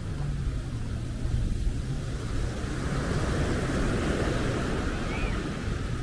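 Small waves breaking and washing up on a sandy shore, swelling about halfway through, with wind rumbling on the microphone and a low steady hum under it in the first few seconds.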